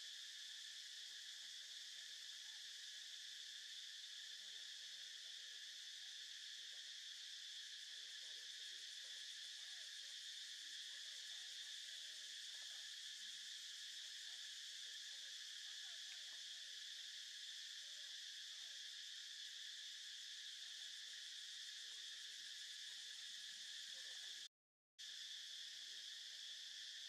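Faint, steady high-pitched drone of an insect chorus in the forest canopy, unbroken except for a brief dropout about three seconds before the end.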